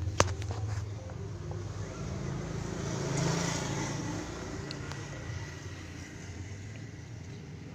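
Aircon blower fan motor humming steadily with a low drone, the humming fault of a stuck blower under check. A few sharp clicks just at the start.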